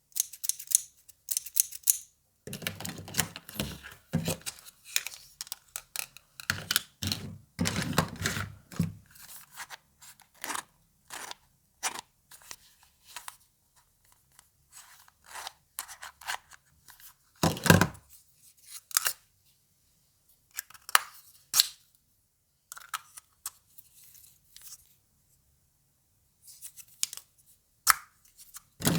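A miniature toy doctor set being unboxed by hand: packaging rustling and tearing, and small plastic pieces clicking, in irregular bursts with short quiet gaps.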